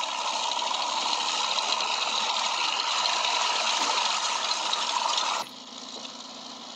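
Rushing, gushing water from a film soundtrack as a tank breaks the surface of a flooded tunnel: a steady dense rush that cuts off abruptly about five and a half seconds in, leaving a quieter low hum.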